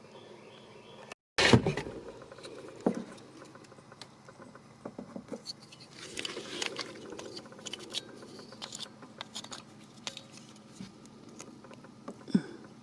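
Hands working a plastic tail-light bulb socket and its wiring: scattered small clicks, taps and scraping, with one loud sharp knock about a second and a half in.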